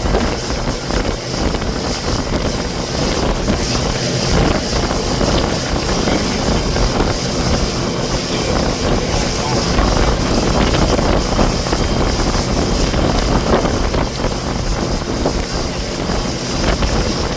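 Motorboat under way, its steady running mixed with a loud, even rush of wind on the microphone.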